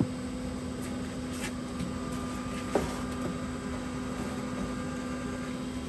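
Pit Boss Copperhead vertical pellet smoker running at temperature: a steady electric hum from its fan, with a few light clicks as the top of the cabinet is handled.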